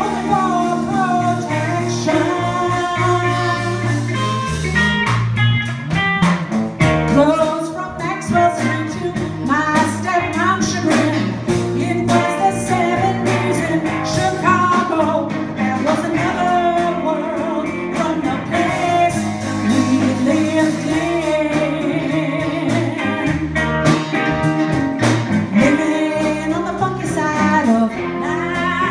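A live band playing a song: a woman singing into a microphone over electric guitar and bass guitar.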